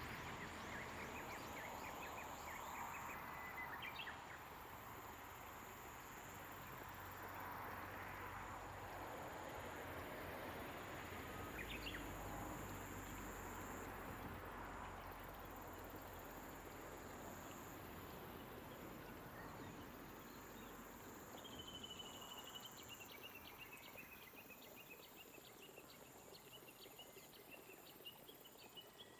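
Gentle rain falling over rice paddies, a soft steady hiss, with birds calling: short runs of repeated notes in the first few seconds and a long run of rapid notes through the last third.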